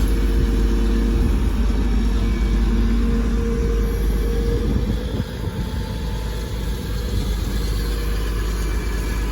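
Heavy diesel machinery engine running steadily at the landfill, an excavator or truck. The even hum eases and the sound drops a little about five seconds in.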